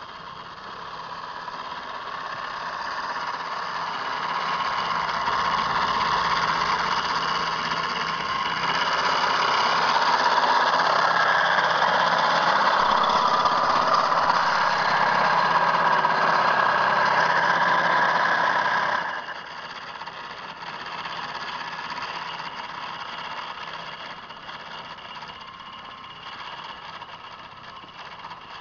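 Metel electric snow thrower running with a steady motor whine. It grows louder over the first several seconds and drops off sharply about two-thirds of the way through, continuing more quietly.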